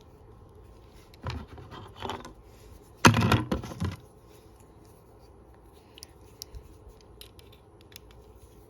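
Scraping and rubbing of a Leatherman Wave multi-tool being handled, with the loudest scrape about three seconds in, then a few light clicks of metal parts near the end.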